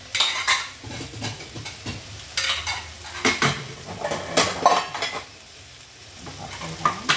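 Plates clinking and clattering as they are taken down from a cabinet and stacked on a kitchen counter: a string of short, sharp clinks, a few close together.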